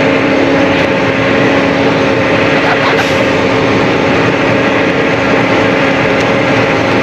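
Steady diesel engine and machine hum of a John Deere 4830 self-propelled sprayer running in the field, heard from inside the cab, with an even droning tone throughout.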